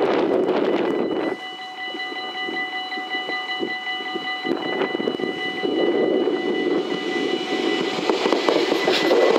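Dutch level-crossing warning bells ringing steadily as an electric Sprinter (SNG) train approaches. The train's rumble grows louder over the last few seconds, with rail clatter near the end. A rushing noise cuts off about a second in.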